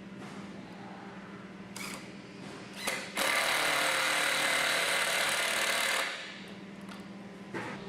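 Power drill driving a screw into a cedar log chair frame: one steady whining run of about three seconds, starting a little after three seconds in, with a few short knocks before and after. A steady low hum runs underneath.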